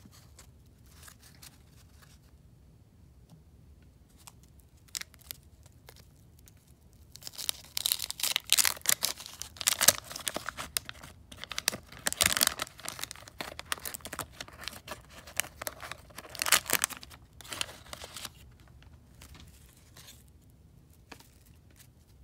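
A baseball card wax pack's paper wrapper being torn open and crinkled by hand, in repeated loud bursts of tearing and crackling, after several seconds of only faint handling clicks.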